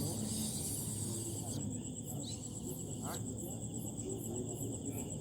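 A steady high-pitched insect chorus, a rapid even pulsing with a slower repeating chirp above it. There is a brief hiss in the first second and a half.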